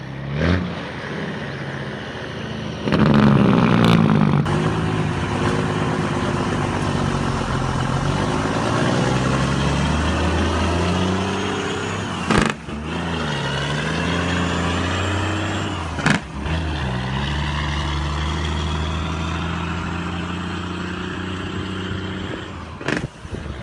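Semi-truck diesel engines on the jake brake (engine compression brake): a deep, rapid exhaust bark whose pitch sinks as the engine slows, with tyre noise as the trucks pass. It breaks off abruptly twice where one truck's sound gives way to the next.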